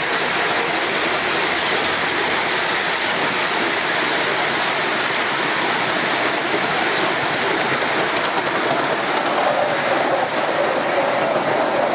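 Ride-on miniature railway train running along a raised track: a steady rushing rumble of the wheels on the rails, with light clicks joining in after about seven seconds.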